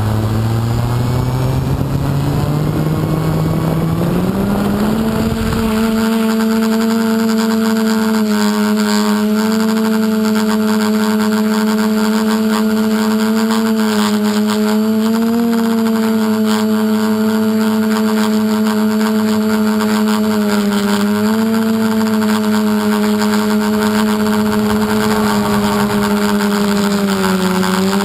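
Electric motors and propellers of an APM 2.5–controlled multirotor drone, heard from its onboard camera, spinning up and rising in pitch over the first five seconds as it lifts off. They then hold a steady drone with small pitch dips and rises as the throttle shifts in flight.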